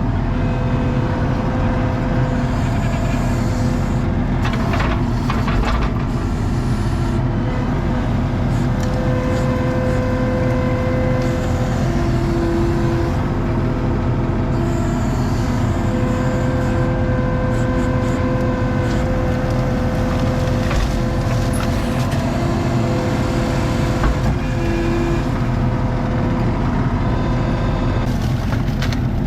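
ASV RT-40 compact track loader's diesel engine running steadily under work, with a whining tone that comes and goes several times and a few short knocks.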